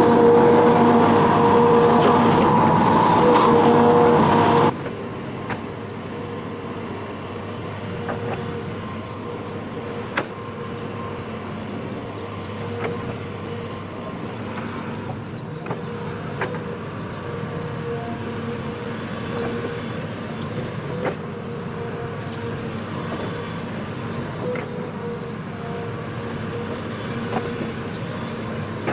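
Diesel engine of a Hitachi Zaxis 210F amphibious excavator running steadily, with a few sharp knocks. The sound drops abruptly to a quieter level about five seconds in.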